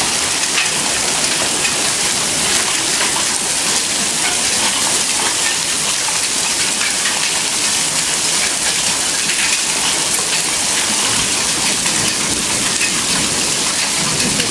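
Hail coming down hard: a dense, steady patter of countless small stones hitting surfaces, unbroken throughout.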